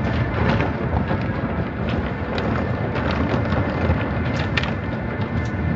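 Automatic car wash heard from inside the car's cabin: a steady rush of water and foam being sprayed and scrubbed over the body and windows, with a low rumble and scattered sharp taps.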